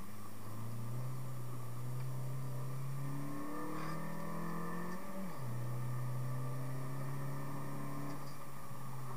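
Renault Mégane's 1.6-litre 16-valve four-cylinder engine heard from inside the cabin, pulling under acceleration with its pitch climbing. About five seconds in the pitch drops sharply at an upshift, then holds steady.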